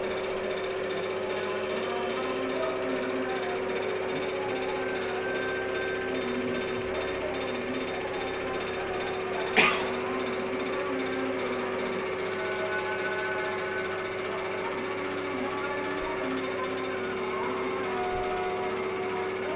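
Kobelco common rail diesel injector firing on a test bench, pulsed by its driver 15 times a second over the bench's steady running hum, during a return-flow leak test. One sharp knock about halfway through.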